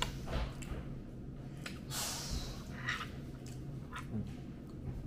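A breath or sniff close to the microphone about two seconds in, with a few light clicks scattered around it, over a low steady hum.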